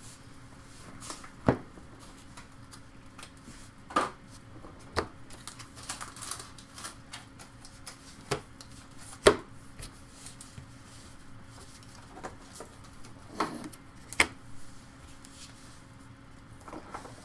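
A stack of baseball trading cards being handled and flipped through, with irregular light clicks and taps of card edges and a few sharper knocks.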